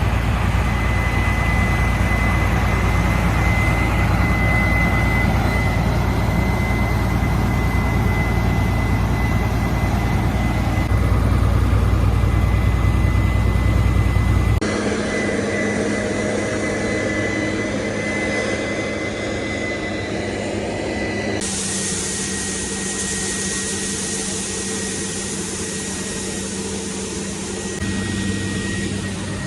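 Heavy harvest machinery engine running steadily, with a constant high whine over the drone. The sound changes abruptly about halfway through and again a few seconds later, as between different machines or shots.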